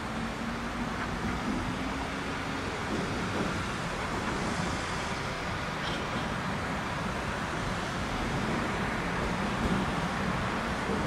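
Diesel shunting locomotive running as it moves slowly along the yard tracks, its engine a faint steady hum under a constant wash of traffic noise.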